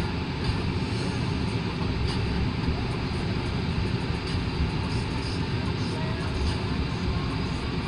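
Long train rolling slowly past, a steady low rumble.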